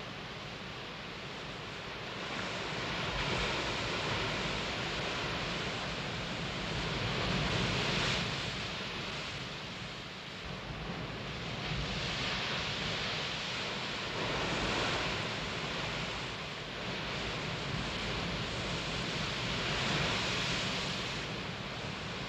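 Ocean surf washing on the shore, the noise of the breaking waves swelling and fading every few seconds.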